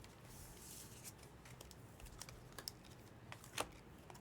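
Trading cards being handled quietly: a soft sliding rustle in the first second, then a few scattered light clicks and taps.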